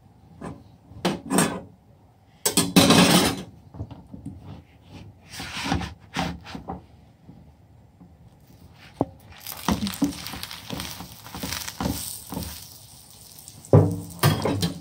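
A spoon and spatula clink and scrape against an iron tawa as ghee is spread on a stuffed aloo paratha and the paratha is turned. From about nine and a half seconds in, ghee sizzles under the flipped paratha, with a few more knocks against the pan.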